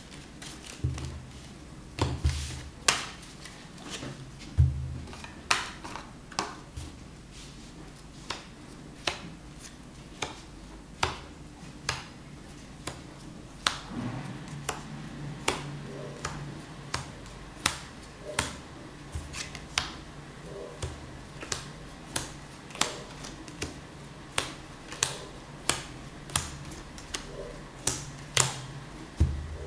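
Playing cards being handled and then dealt one by one onto a cloth close-up mat: sharp card snaps and taps, a few scattered ones at first, then from about halfway through a steady run a little faster than one a second.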